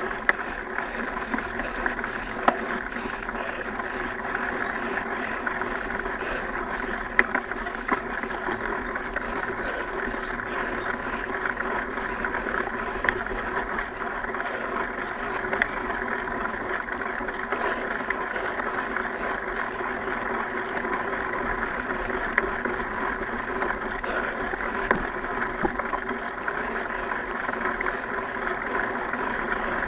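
Mountain bike riding along a dirt trail: steady rolling noise from the tyres and drivetrain, with a scattered handful of sharp knocks from bumps.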